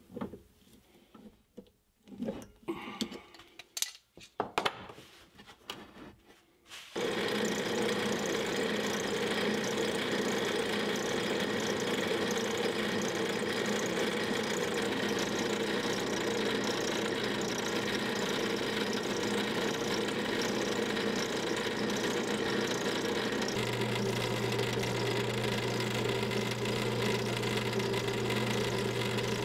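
Clicks and knocks of a drill press chuck being tightened by hand onto a pen mandrel. About seven seconds in, the drill press motor starts and runs steadily, spinning a wooden pen blank as it is shaped by hand. Near the end a low hum grows louder.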